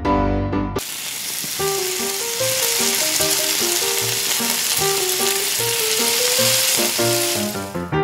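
Hot oil sizzling as crumb-coated chicken pieces deep-fry in a small wok. The sizzle starts about a second in and cuts off suddenly near the end, with soft piano-like music underneath.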